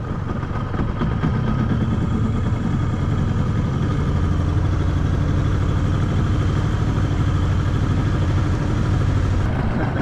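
Boat outboard motor running steadily at low speed, a low pulsing engine hum.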